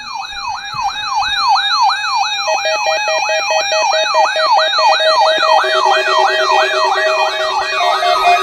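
Several electronic alarms sounding together: one gives a falling whoop about three times a second, over steady beeping tones. More alarm tones join about two and a half seconds in and again about five and a half seconds in.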